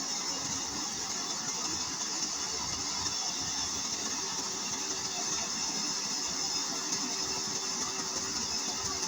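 A rice combine harvester's engine running steadily, with a constant high hiss over it and no change in speed.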